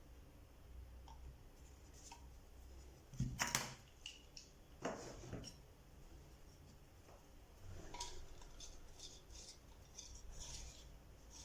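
Small handling sounds: light clicks, taps and scraping of small hard objects, with the loudest knocks about three and a half seconds in and another scrape around five seconds in, then a run of quick small ticks near the end.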